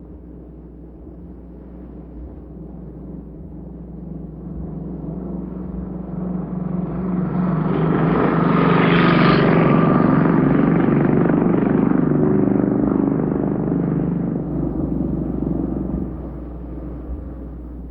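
Motorcycle engine passing by: it grows steadily louder, is loudest about nine to eleven seconds in, then fades away.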